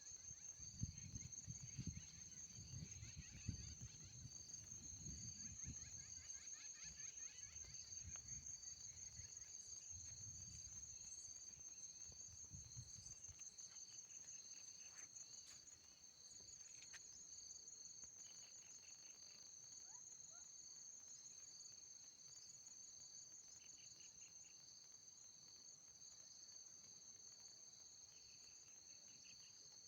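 Insects trilling: a continuous, finely pulsed high-pitched trill at two pitches, with shorter bursts of lower chirping every few seconds. A low rumble runs underneath during the first half.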